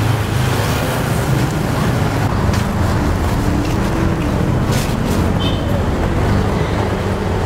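Steady rumble of road traffic with a low hum, a few faint ticks, and a brief high chirp about five seconds in.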